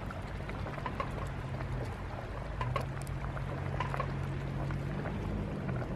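Wooden spoon stirring food in a stainless-steel pot simmering on a portable camp stove, with liquid sloshing and a few light clicks of the spoon. Under it runs a steady low mechanical hum.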